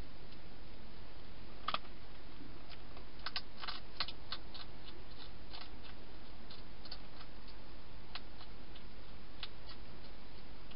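Wild hedgehog eating dry food in a plastic feeding box: sparse, irregular crisp crunching clicks, bunched together about three to four and a half seconds in, over a steady hiss.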